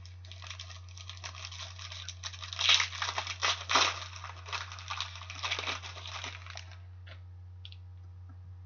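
Foil trading-card pack wrapper crinkling and tearing as it is opened and the cards are pulled out, irregular and crackly; it stops about seven seconds in, leaving a steady low hum.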